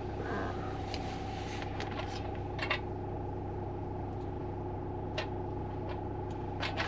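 Steady hum of a running car heard inside its cabin, with a few light clicks and taps as a metal aircraft muffler heat shroud is handled and turned over.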